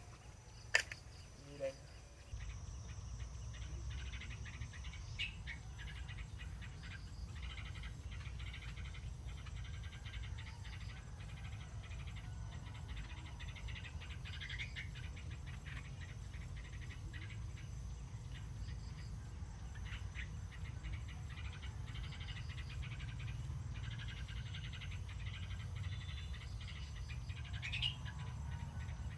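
Natural ambience among trees: an insect chirping steadily at a high pitch about once a second, with scattered faint bird chirps over a low steady rumble.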